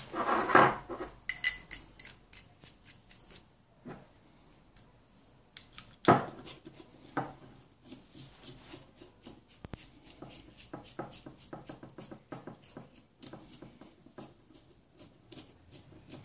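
Steel parts of a small homemade pulley puller being handled: a clatter of metal at the start and a sharp knock about six seconds in. From about eight seconds on comes a run of small metallic clicks and scrapes as a threaded rod is turned through the nut on the square steel-tube frame.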